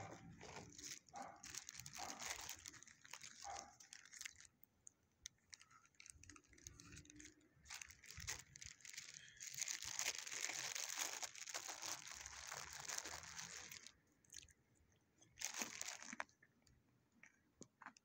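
Rustling, crinkling and crunching close to the microphone, in scattered bursts with a long dense stretch about ten seconds in.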